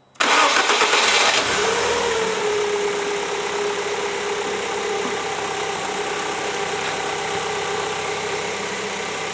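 Rover K-series 16-valve four-cylinder petrol engine starting on its first run after a head gasket repair: it catches almost at once, its revs flare for about a second, then settle into a steady idle.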